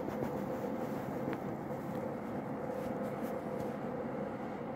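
Steady background hum and hiss with a faint constant tone and no speech.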